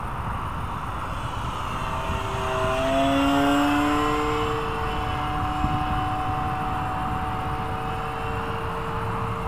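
Electric motor and propeller of a Carbon-Z Yak radio-controlled plane whining as it flies past, growing louder and rising in pitch about three seconds in, then holding a steady tone as it fades away. Wind buffets the microphone throughout.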